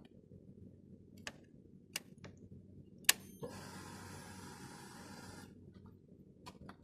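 Faint mechanical clicks on a Brixton Felsberg 125 X motorcycle, one sharp and louder about three seconds in. A whir follows for about two seconds and stops abruptly, then two more clicks come near the end.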